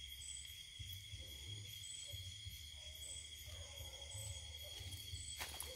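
Forest insects, crickets or cicadas, droning steadily with a pulsing high buzz, and a faint wavering distant dog howl about three seconds in, carried up the hill from below. A single click near the end.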